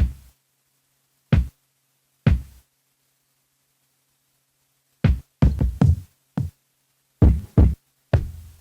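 Drum samples from an Akai Force played as single hits at uneven spacing, rather than as a running beat: a few spaced hits, a pause of about two seconds, then a quick run of hits and a few more.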